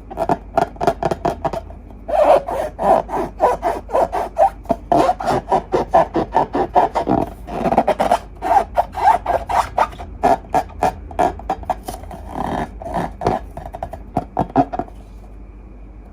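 Slime being squeezed and worked by hand: a dense run of sticky clicks and pops, several a second, that stops about 15 seconds in.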